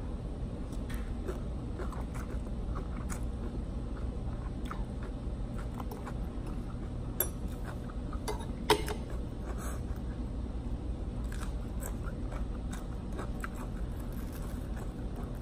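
Close-up chewing and crunching of cucumber salad with noodles, over a steady low rumble. Two sharp clinks of metal utensils on the plate come about seven and nine seconds in.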